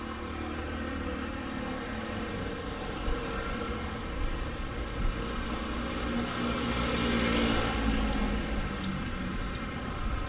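A motor vehicle passing in street traffic: a low engine rumble and tyre hiss that swell to their loudest about seven to eight seconds in, then ease off.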